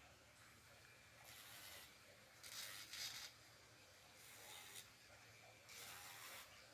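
Pet nail grinder's sanding drum rasping against a dog's toenails in four short passes, each about half a second long, with a faint steady hum between them.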